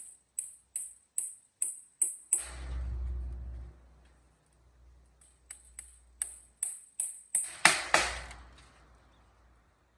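Light hammer taps on wood, about two and a half a second, in two runs, each ending in a heavier knock with a low thud.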